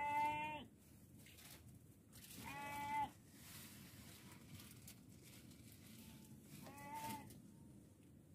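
An animal calling three times: short, level-pitched calls about half a second long, the first at the very start and loudest, then one about two and a half seconds in and one near the end.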